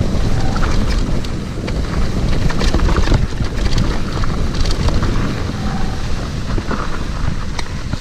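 Wind buffeting the microphone of a mountain bike's camera on a descent, a heavy steady rumble, with tyres running over a bumpy dirt trail and the bike rattling and clicking over the bumps.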